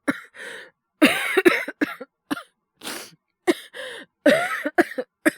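A man coughing hard in a run of about six fits, each a cluster of several sharp coughs with short pauses between: an acted cold cough.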